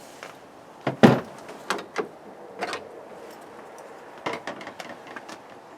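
Irregular clicks and knocks of plastic trim being prised off around the rear door handle of a 1988 Renault Extra van, the loudest knock about a second in and a small cluster of clicks near the end.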